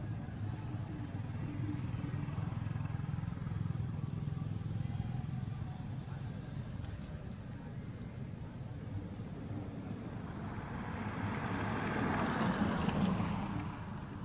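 Outdoor road ambience: a steady low rumble with a faint high chirp repeating about every 0.7 seconds. A vehicle passes on the road, swelling from about ten seconds in, loudest near the end, then easing off.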